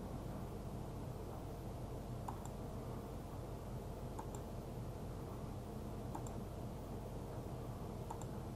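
Computer mouse clicks, one about every two seconds, as the spin button of an online slot game is clicked, over a steady low hum.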